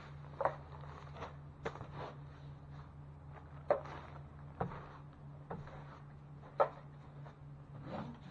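Irregular scrapes and sharp light knocks from hand drywall work, with a steady low hum underneath.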